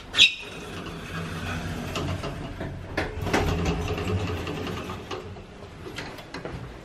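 Lift arrival chime, one short bright ring, then the lift's steel doors sliding open with a few seconds of motor hum and rumble.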